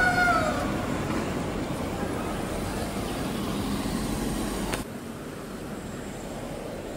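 Steady road traffic noise with a brief falling tone fading out in the first second. The traffic noise drops suddenly to a quieter level about five seconds in.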